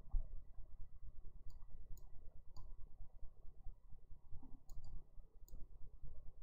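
Computer mouse clicking: scattered short clicks, several in quick pairs, over a low steady background rumble.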